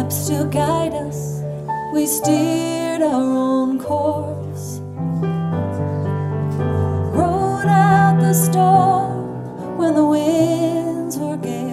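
A slow, tender song sung live, accompanied by piano or keyboard. The voice holds long, wavering notes over steady chords.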